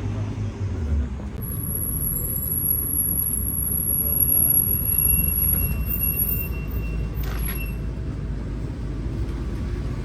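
City street traffic: a steady low motor-vehicle rumble that swells a little around the middle, with a short hiss about seven seconds in.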